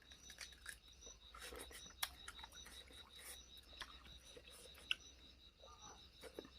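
Quiet room with faint scattered clicks and taps, two sharper clicks about two and five seconds in, over a faint steady high-pitched whine and a low hum.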